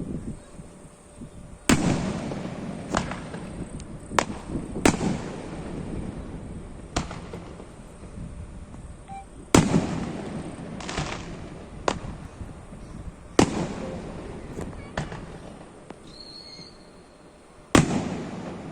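Fireworks bursting about a dozen times at uneven intervals, each a sharp bang followed by a rolling, echoing tail. The heaviest bursts come about two, ten, thirteen and eighteen seconds in.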